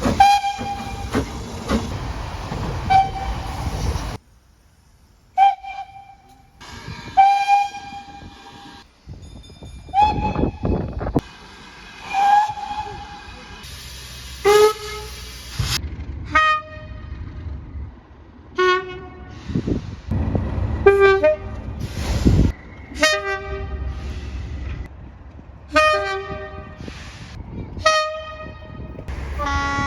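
A run of short train horn blasts from several recordings cut together, each blast sounding several tones at once, with abrupt jumps in the background between clips. In places the rumble of the passing train runs under the horn.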